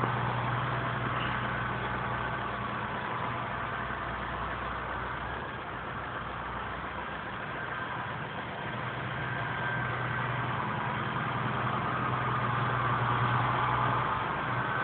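John Deere 6480 tractor's diesel engine running steadily as it drives back and forth rolling silage in the pit. It dips slightly partway through and picks up again near the end.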